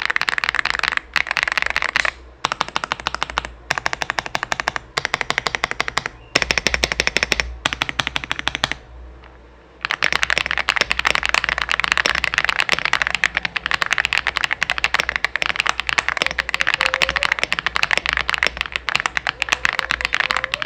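Fast typing on an Aula F87 Pro gasket-mounted mechanical keyboard with factory-lubed Space Crystal linear switches, PC plate and layered foam, giving a creamy key sound. Quick runs of keystrokes break off briefly several times, with a pause of about a second near the middle.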